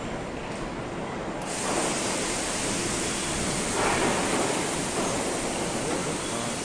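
A steady rushing hiss switches on suddenly about a second and a half in and keeps going, over a low workshop rumble, swelling briefly twice.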